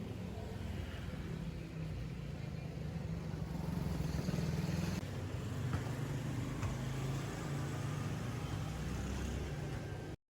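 A motor vehicle running: a steady low engine hum that cuts off abruptly near the end.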